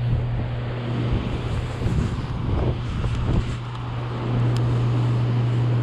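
Steady rush of water discharging below a hydroelectric dam, over a constant low hum.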